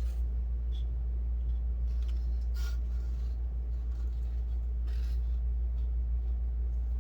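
A steady low hum, with faint rustles of packaging and parts being handled about three and five seconds in.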